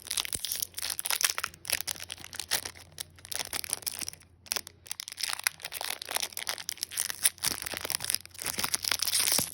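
Foil wrapper of a Pokémon booster pack being torn open and handled: dense crinkling and crackling, with a short pause a little before halfway.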